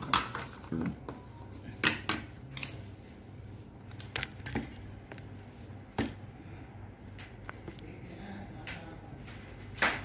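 Light clicks and knocks of small hardware being handled on a workbench, several scattered over the seconds with the loudest near the end, over a low steady hum.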